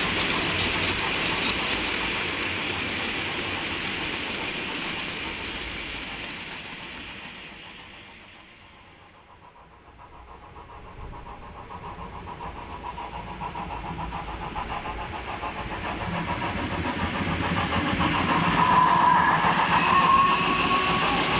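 OO gauge model train running on the track: a rake of mineral wagons clicking over the rails as it moves away, fading to quiet about nine seconds in. A model WD 2-8-0 locomotive then approaches with its wagons, its running sound growing steadily louder and loudest near the end.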